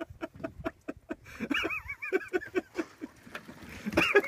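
People laughing in rapid rhythmic bursts, with a short lull about a second in and a loud burst near the end.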